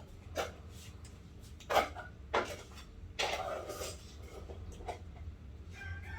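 Three sharp knocks, then a rustle lasting under a second, over a steady low hum.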